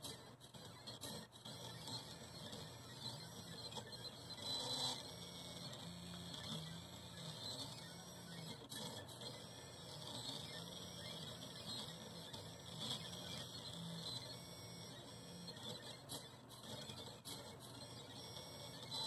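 AxiDraw MiniKit pen plotter's stepper motors whining as the pen carriage draws curved strokes, the pitch rising and falling in arcs with each stroke. A few short clicks are heard along the way.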